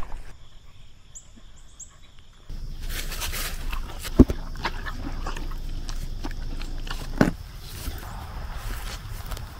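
Rustling and handling noise from a handheld camera jostled among dogs on grass, with two sharp knocks about four and seven seconds in. The start is quieter, with a few faint short high chirps.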